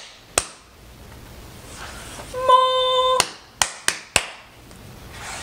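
Hands clapping: one clap just after the start, then a few quick claps about three to four seconds in. Between them a short, held high note sounds, a voice or toy-like tone.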